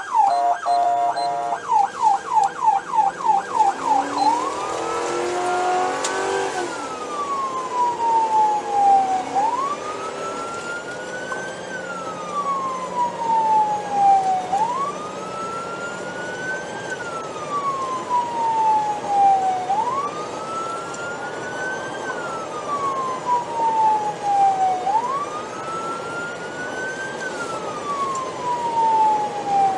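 Patrol car's electronic siren heard from inside the vehicle: fast yelp sweeps, about four or five a second, for the first few seconds, then a slow wail that rises quickly and falls slowly, about every five seconds.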